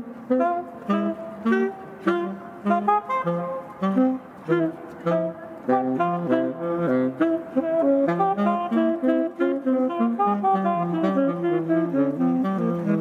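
Background jazz music led by a saxophone, playing a quick line of short separate notes.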